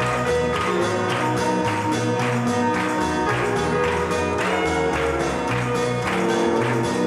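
Instrumental passage of a gospel song without vocals: bass notes under several instrument lines, with a steady beat of about two strokes a second.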